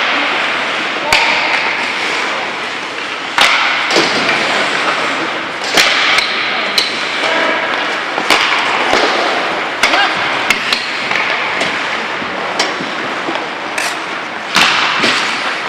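Ice hockey play: sharp clacks of sticks and puck, one every second or two, over a steady scraping hiss of skates on ice, with players calling out.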